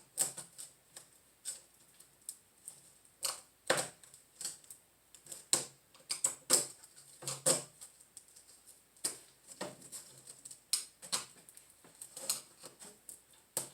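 Irregular sharp clicks and scrapes from a screwdriver picking and digging old rubber spline out of a window screen frame's groove, about one or two a second.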